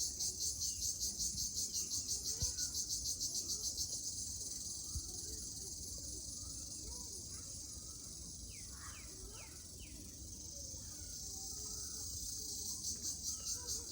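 Jhijhi poka insects shrilling in a high, pulsing trill at about three pulses a second, smoothing into a steadier, fainter buzz through the middle and pulsing again near the end. A bird gives four quick falling chirps about nine seconds in.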